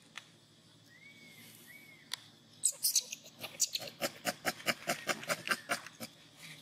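Long-tailed macaques: two short squeaks, each rising then falling, then a quick run of sharp smacking clicks, about four a second, as a newborn macaque nurses at its mother's chest.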